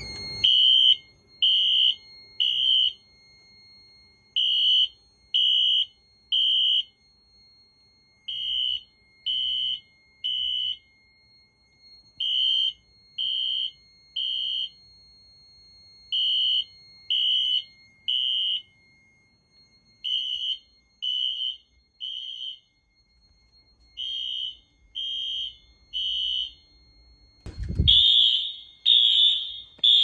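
Wheelock NS and AS fire alarm horn-strobes sounding in sync on the temporal-3 evacuation pattern. Each cycle is three high-pitched beeps and a pause, repeating about every four seconds. Near the end the horn is louder and closer, with a short thump just before.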